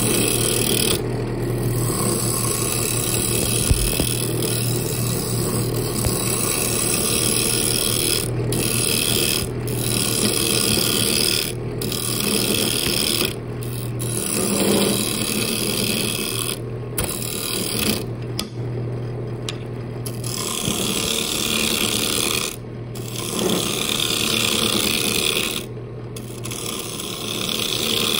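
Wood lathe running with a steady motor hum while a hand-held turning tool cuts the spinning wooden blank, a continuous shaving hiss that stops for a moment about ten times as the tool lifts off and goes back to the wood.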